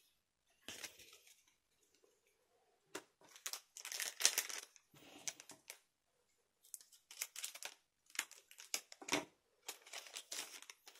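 Foil trading-card booster-pack wrappers crinkling in short, irregular bouts as they are handled, with light clicks among them.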